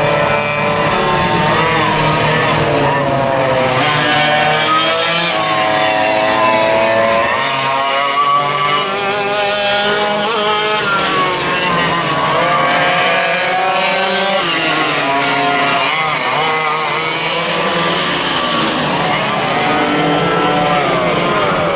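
Several vintage racing kart engines running at high revs, their pitches rising and falling and overlapping as karts accelerate, lift off and pass by.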